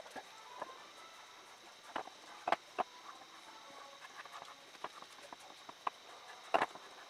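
Faint handling noise: a few light, irregularly spaced clicks and knocks as the beech-wood mask shifts on the table and a felt-tip marker is handled, the clearest about two and a half seconds in and near the end.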